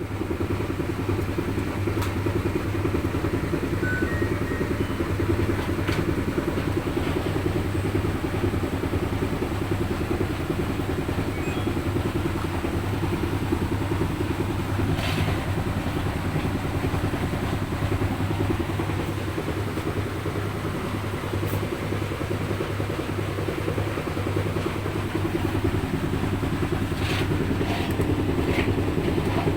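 LG washing machine running with a steady low mechanical hum, with a few light clicks scattered through it.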